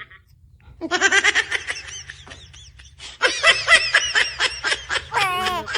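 High-pitched laughter in two quick bouts of rapid, chopped syllables; the second bout ends in a falling squeal.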